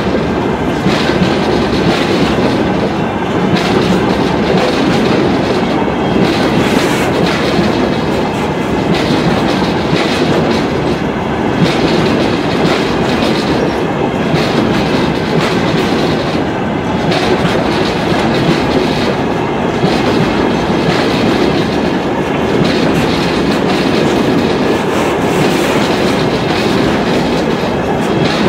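Freight train of open-top wagons rolling past at close range: a steady, loud noise of steel wheels on rails, broken by the clicks of wheels passing over rail joints.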